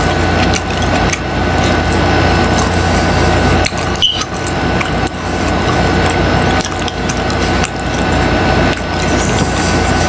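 Close-miked chewing of a mouthful of crunchy taco with tripas: continuous crunching with irregular breaks between bites.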